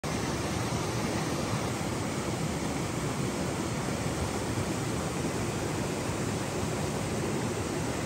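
Steady rushing of a waterfall, an even, unbroken noise.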